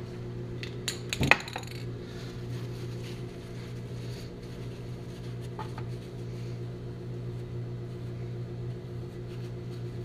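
A few sharp metallic clinks about a second in, from the spray can and hubcap being handled on a steel-topped workbench, with a couple of faint clicks later. A steady low electrical hum runs underneath.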